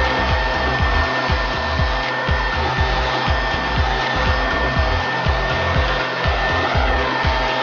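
Leaf blower running steadily, a constant rush of air with a steady high whine, blowing grass clippings off a sidewalk and driveway.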